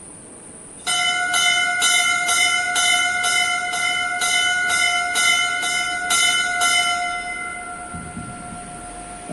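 A bell struck rapidly and repeatedly, about two to three strikes a second, starting about a second in; the strikes stop near seven seconds and the bell is left ringing and fading away.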